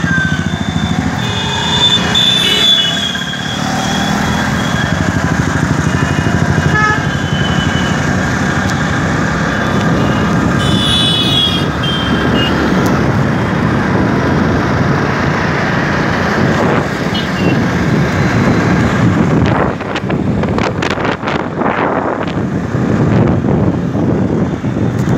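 Riding a motorcycle through city traffic: steady engine and road noise, with short horn toots about two seconds in and again around eleven seconds. Wind buffets the microphone in gusts over the last few seconds.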